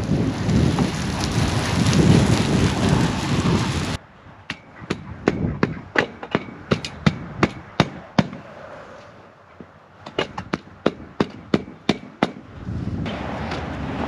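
Water spraying from a garden hose nozzle onto the dirt for about four seconds, cutting off abruptly. Then a run of sharp knocks, about three a second, twice, with a short pause between, and near the end a rougher noise starts.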